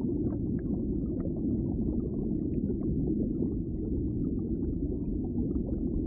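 Underwater ambience: a steady low rumble of water with faint scattered pops.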